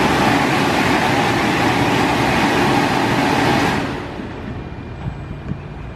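Dryer blowers of an Istobal M1 rollover car wash running at full blast with a steady loud rush of air, then shutting off abruptly about four seconds in, which marks the end of the drying stage; a low hum remains.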